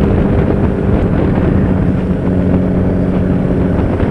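Honda CB1000R's inline-four engine running at a fairly steady speed through an Akrapovic exhaust while riding, with wind noise on the microphone.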